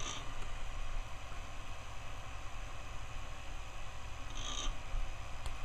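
Homemade electro-mechanical resonance motor running, its coils pulsed about 20 times a second by a pulse width modulator: a steady low hum and buzz. Two brief hissing sounds come at the start and about four and a half seconds in.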